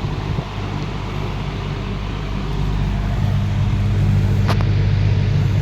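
AMC-by-Hunter box fan with aluminum blades running, a steady rush of air over a low motor hum that grows louder about three seconds in. A single sharp click near the end.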